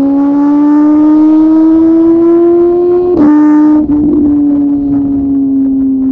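Motorcycle engine pulling under way, its note rising slowly as it accelerates, then dropping sharply a little past halfway with an upshift and a brief rush of noise, and running on at a steady, slowly falling pitch.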